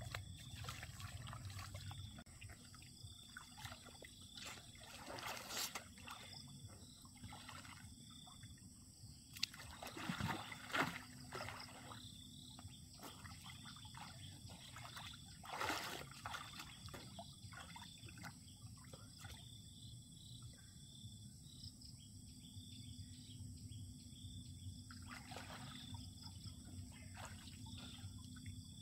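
Water sloshing and splashing as a person wades and swims through muddy floodwater, with louder splashes about five, ten and sixteen seconds in. A faint high chirp repeats in the background.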